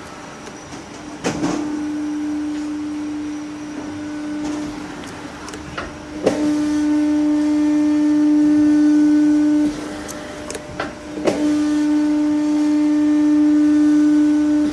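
A 2500 × 12 mm sheet-metal shearing machine running with a steady hum. A sharp knock comes about every five seconds, and after the last two the hum grows louder for about three seconds, as the machine works through its cutting cycle.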